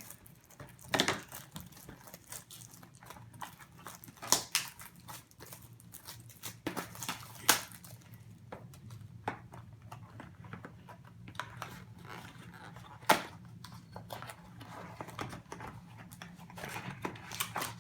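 Handling noise from a trading card box being worked open: scattered clicks, taps and scrapes of the packaging, a few sharper knocks among them, over a steady low hum.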